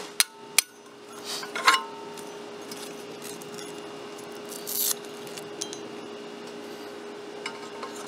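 Metal depth ring being worked off and on the tube of a Pro Plugger lawn plugging tool. Two sharp clicks come near the start, then metal scrapes and clinks, with a few lighter ticks later on.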